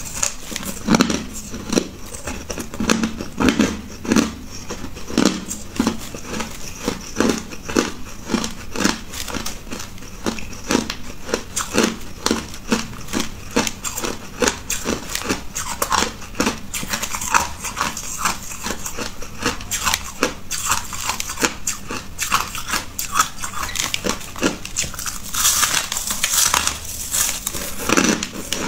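Crushed white ice being bitten and chewed close to the microphone: a steady run of sharp crunches, about one to two strong ones a second.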